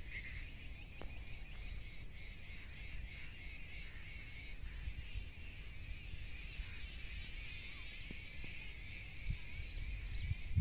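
Steady outdoor chorus of insects and birds chirping, over a low rumble.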